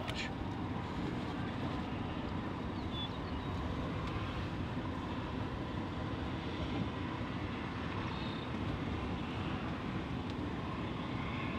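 Steady rushing wind noise with no breaks, heaviest in the low range.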